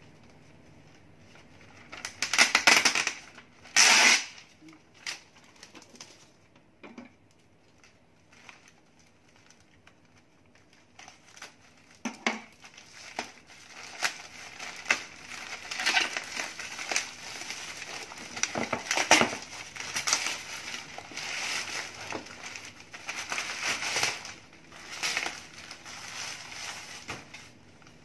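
Plastic courier mailer bag being torn open and handled, its plastic crinkling and rustling. Two loud bursts come about two and four seconds in, then a quiet stretch, then almost constant crinkling from about twelve seconds on as the contents are pulled out.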